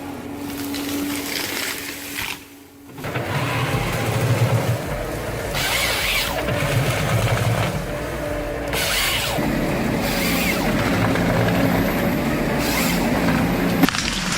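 Heavy machine engine running with mechanical work noise; the sound drops out briefly about two and a half seconds in, then the machine noise resumes.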